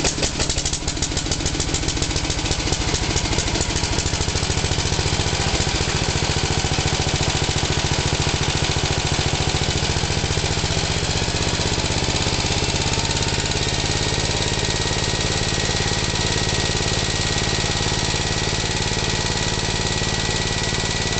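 Small engine-like motor running with a fast, even chug that has just started up. A thin steady whine joins it about halfway through.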